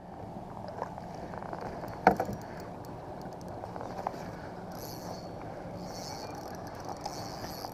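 Steady low noise of water and wind around a kayak on open water. A sharp knock comes about two seconds in, with a few faint clicks after it.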